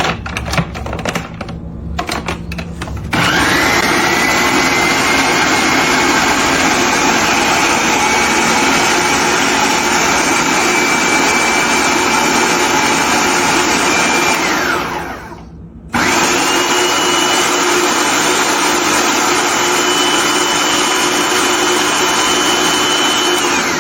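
Food processor chopping baked egg yolks, run in two long pulses: the motor whines up to speed after a few clicks, winds down and stops about two-thirds through, then starts again at a slightly higher pitch and winds down near the end.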